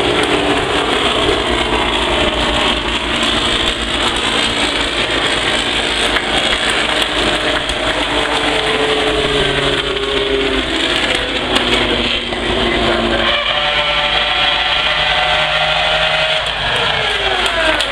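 Formula One cars' engines running at low speed as the cars drive past one after another, their notes rising and falling as they pass. Near the end one passes close, its pitch dropping steeply as it goes by.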